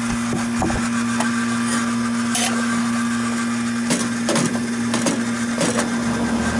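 Steady electric hum of running refrigeration equipment, one constant low tone, with a few short scuffs and knocks over it.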